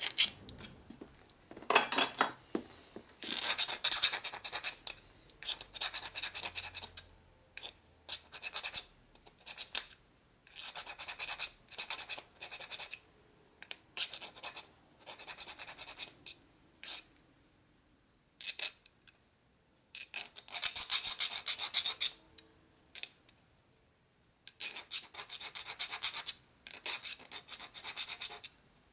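Hand file rasping across a small damaged metal nut in repeated strokes, in runs broken by short pauses; the nut's flats are being filed down so a socket will fit on it.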